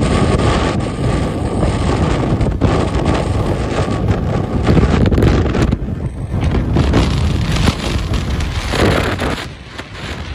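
Wind buffeting the microphone of a phone held out on a moving motorbike, a loud rough rush over the bike's road noise. It eases briefly near the end.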